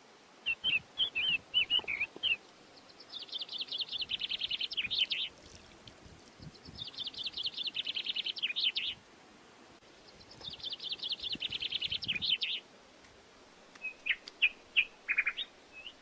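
Songbirds: a few short chirps, then three long, rapid trilled songs of about two seconds each, each sliding down in pitch, with pauses between them, and more short chirps near the end.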